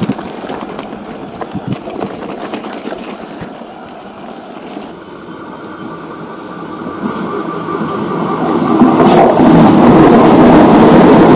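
Passenger train on the Wollongong–Central line approaching and passing, its rumble and wheel noise growing from about halfway through and loud by the end.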